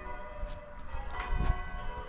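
Church bells being rung by the ringers at practice, their overlapping tones sounding throughout. A few knocks and a low thump come about one and a half seconds in.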